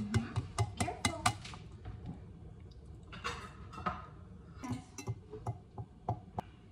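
An egg tapped quickly against the rim of a ceramic mixing bowl: a run of sharp clicks that stops about a second and a half in. A few softer clinks follow as a utensil works in the bowl.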